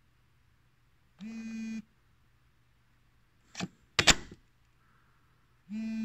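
A Zebra TC57 handheld computer being reseated in its plastic charging cradle: a short buzz about a second in, two hard plastic clunks around four seconds in, the second the loudest, as the device is pushed into the dock, then another short buzz near the end as it shows charging again.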